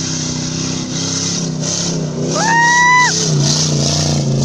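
Rally 4x4's engine running hard as it speeds past on a sand track. About halfway through, a loud whistle rises, holds its pitch for under a second and drops away.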